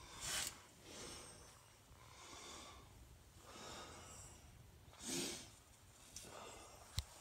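Faint breathing close to the microphone: several soft, airy breaths a second or so apart, with one sharp click near the end.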